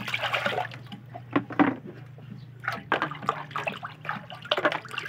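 Dishes being washed by hand: water sloshing and splashing in irregular bursts.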